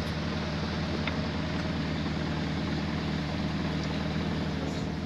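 Boat motor idling: a steady low hum under a light even hiss.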